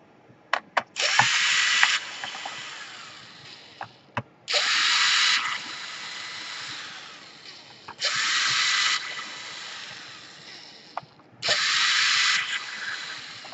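Electric screwdriver run in four short bursts of about a second each, each fading away afterwards, backing out the screws that hold the laptop's hard drive, with a few sharp clicks in between.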